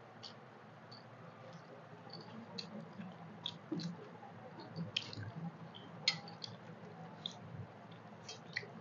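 Fingers squishing and mixing rice with curry on steel plates, with scattered small clicks and taps against the metal, the sharpest about five and six seconds in, and faint chewing.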